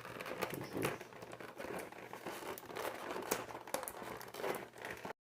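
Packaging crinkling and rustling as it is handled and pulled at, with many small sharp clicks and crackles; it cuts off abruptly near the end.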